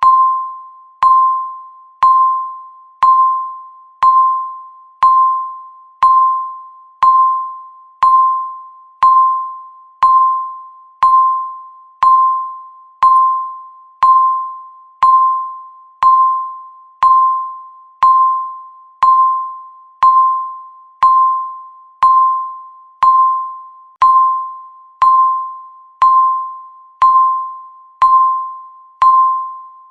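Countdown timer beeping once a second: a single mid-pitched electronic beep, the same pitch every time, starting sharply and fading away before the next.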